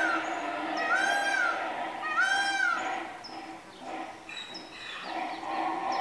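Male Grevy's zebra calling: a run of three high, squealing bray notes in about three seconds, each rising, holding and falling in pitch.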